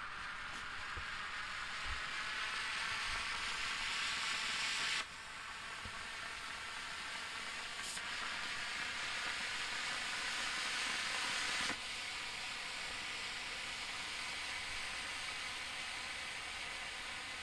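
Blue technical smoke firework hissing steadily as it burns, with two sudden drops in loudness, about five seconds in and again near twelve seconds.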